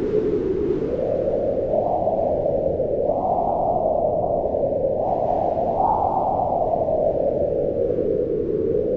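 Howling mountain wind, a steady moaning whose pitch rises and falls in slow swells, highest about six seconds in.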